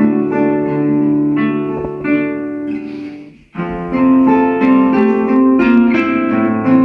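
Two guitars playing a duet, plucked notes ringing over one another. About halfway through, the sound dies away almost to nothing for a moment, then the playing picks up again.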